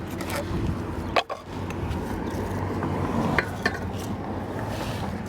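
Scrap metal pulled up by a magnet clanking as it is handled: one sharp clank about a second in and two lighter clicks a couple of seconds later, over a steady low rumble.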